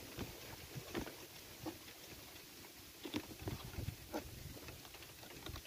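Faint, irregular clicks and scrapes of scissors working at a broken latch on a corrugated plastic box, over a low wind rumble on the microphone.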